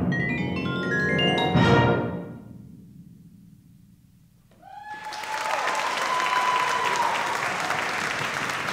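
Vibraphone and wind ensemble play the closing notes of the movement, a struck chord and a quick upward sweep that ring and die away. About four and a half seconds in, audience applause breaks out, with a cheer above it.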